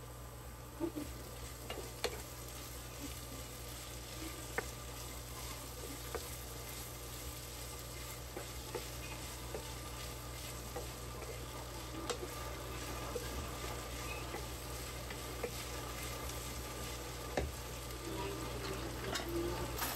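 Sliced bottle gourd and ground pork sizzling in a nonstick frying pan while a wooden spatula stirs them, with an occasional sharp tap or scrape of the spatula against the pan.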